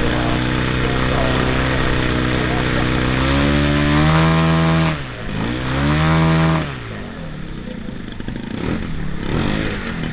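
Piston engine of a large-scale RC model Soviet WWII fighter running on the ground: a steady idle, then two run-ups in revs about three and a half and five and a half seconds in, each cut back, before it settles to a lower, slightly uneven idle.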